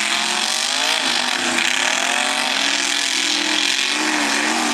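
Mud-bogging 4x4 truck's engine revving hard at high rpm as it powers through a mud pit, its pitch wavering up and down with the throttle, over a loud hiss of spinning tyres and flung mud.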